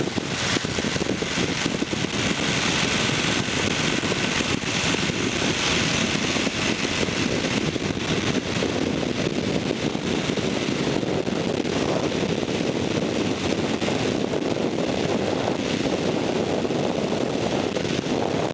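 Microlight aircraft engine and propeller held at full power through the takeoff run and climb-out, a steady, unbroken drone.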